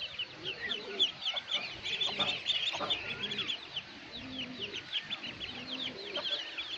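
A basketful of ducklings peeping rapidly and without pause in many high, short, falling calls, with a hen's lower clucking now and then underneath.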